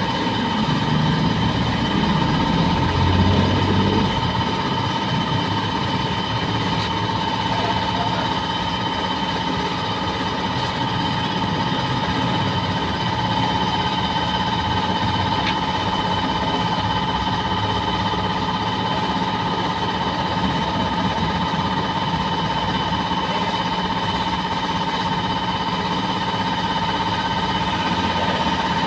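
An engine running steadily with a constant whine, its low rumble heavier for the first few seconds.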